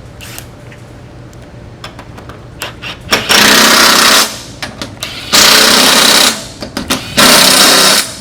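Impact tool running down the four hand-started bolts of a tool holder on a trowel pan, in three hammering bursts of about a second each after some light clicking.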